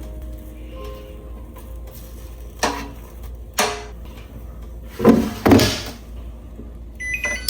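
Soft background music with kitchen handling sounds over it: two short knocks about a second apart, then two louder, half-second noisy sounds around five seconds in.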